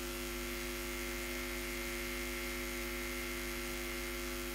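Steady electrical mains hum, several unchanging tones over a constant hiss.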